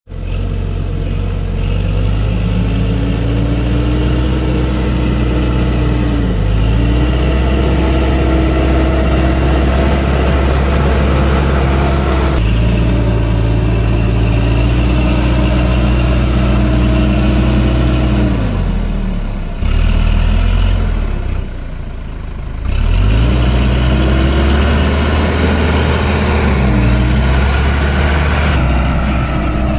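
Sonalika DI-750 III RX tractor's diesel engine working hard as it drags a heavily loaded trolley through deep mud, its revs rising and falling. About two-thirds of the way through the revs drop low for a few seconds, then climb again.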